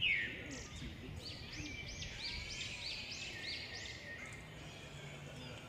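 Small birds chirping outdoors, with a quick run of high rising-and-falling notes, about four a second, in the middle, over steady background noise.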